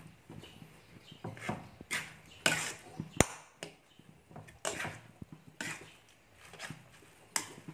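Metal spatula scraping and folding wet steamed glutinous rice against a non-stick wok, in irregular strokes about once a second, with a sharp clink about three seconds in. The rice is being mixed into hot coconut milk and sugar syrup.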